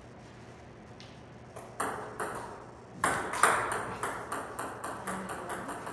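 Table tennis ball clicking back and forth off the paddles and the Joola Tour 2500 table in a rally: a few sharp pocks about two seconds in, then a quick steady run of about three a second from three seconds in.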